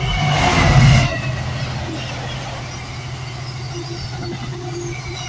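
Freightliner Class 66 diesel locomotive passing close by, its two-stroke V12 engine loudest about a second in. It is followed by the steady rumble of loaded container wagons rolling past, with thin high squealing tones from the wheels.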